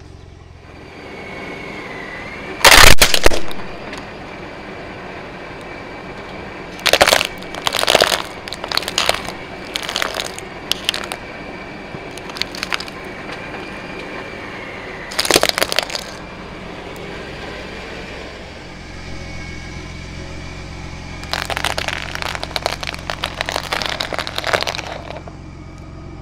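Objects breaking under a big vehicle tyre: a loud crack about three seconds in, then clusters of sharp cracks and snaps of brittle plastic, and near the end a longer run of crackling, with a low vehicle rumble in the latter part.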